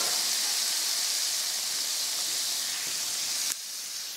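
Butter, olive oil, garlic and lemon juice sizzling steadily in a hot cast-iron skillet. The sizzle drops suddenly quieter about three and a half seconds in.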